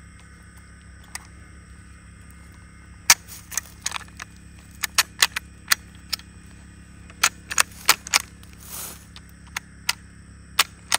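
Mosin-Nagant rifle being loaded by hand from a tight new stripper clip: cartridges pressed down into the magazine in a run of sharp metallic clicks and scrapes, the loudest about three seconds in, with a brief sliding swish near the end.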